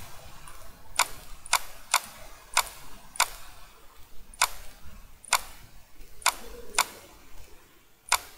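Computer mouse clicking: about ten sharp single clicks, spaced irregularly half a second to a second apart.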